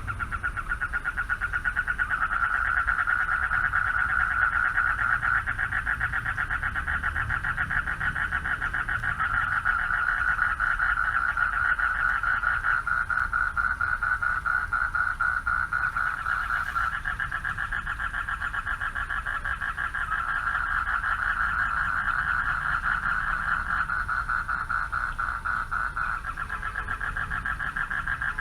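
A chorus of male frogs calling for mates from a pond: a dense, fast-pulsing trill that never stops.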